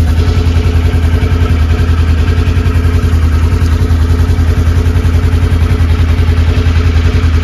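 2015 Polaris RZR 900's ProStar parallel-twin engine idling steadily, with an even low pulsing exhaust note.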